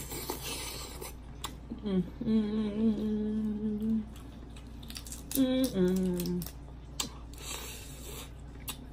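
A woman humming with her mouth closed while eating crab: a long steady 'mmm' about two seconds in and a shorter two-note one about five seconds in. Soft clicks and mouth sounds of eating come between the hums.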